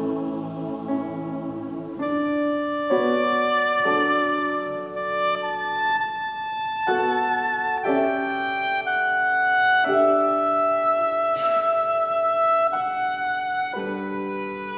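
Oboe playing a slow solo melody of long held notes over a lower sustained accompaniment, coming in about two seconds in after a held chord.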